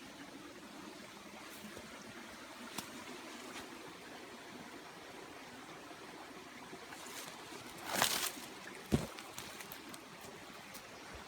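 Creek water trickling steadily. About eight seconds in there is a brief loud rustle, followed a moment later by a single sharp knock.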